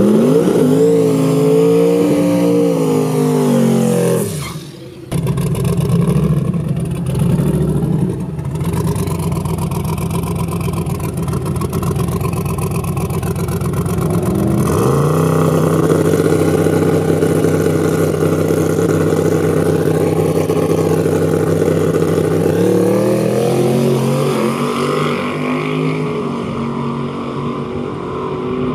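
Turbocharged LS V8 in a Chevy S-10 drag truck, revved hard and running rough at the line, then rising sharply in pitch at the launch about halfway through and pulling hard down the drag strip, with another climb in revs near the end.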